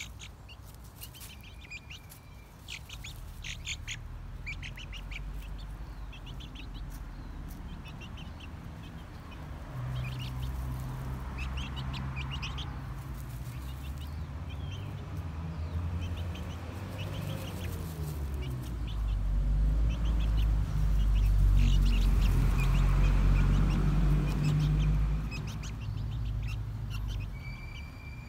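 Young chickens peeping and chirping while they dust-bathe, scratching and rustling in dry leaves and earth. A low rumble builds from about a third of the way in and is loudest about two-thirds through before it eases off.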